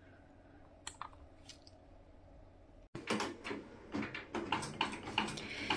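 A quiet room with a single click, then a run of clicks and paper rustling as printed sticker sheets are handled on a wooden desk.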